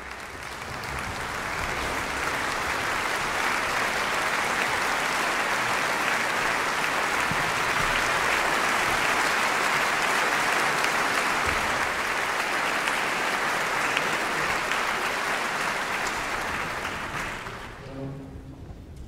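Concert audience applauding: the clapping swells over the first couple of seconds, holds steady, then dies away near the end.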